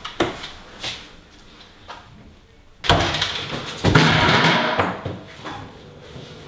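A couple of light knocks, then music comes in suddenly about three seconds in, loudest a little past the middle and fading near the end.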